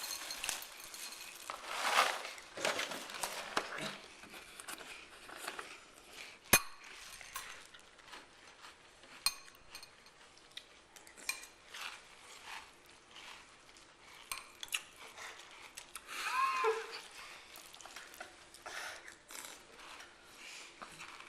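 Spoon and bowl clinking and scraping, with scattered light clicks. There is one sharp click about six and a half seconds in and a short squeak about sixteen seconds in.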